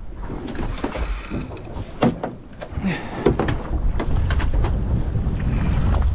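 Wind buffeting the microphone and water slapping a small boat's hull, with scattered knocks and clunks of gear being handled aboard. The wind rumble grows stronger over the second half.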